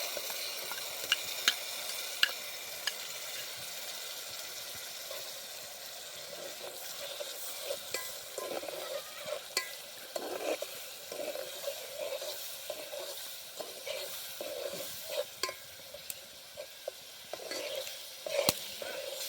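Food frying and sizzling in a pan while it is stirred with a spoon, which clinks sharply against the pan several times, most often in the first few seconds and once loudly near the end.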